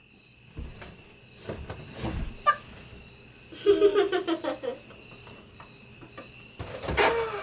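Small children vocalizing playfully in short wordless bursts, with a few soft thumps as they tumble and drop onto a mattress.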